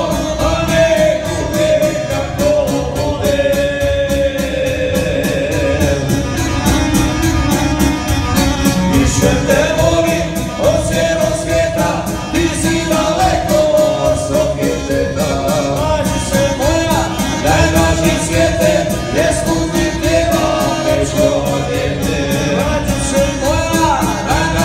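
A live band playing with a singer at the microphone, backed by keyboard and violin and amplified through a PA. The vocal line has wavering, ornamented held notes.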